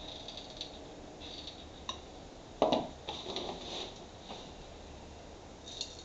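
Hot glue gun and driftwood being handled in a glass fishbowl: small clicks and scrapes, with one loud knock a little over two and a half seconds in as the glue gun is set down on the table.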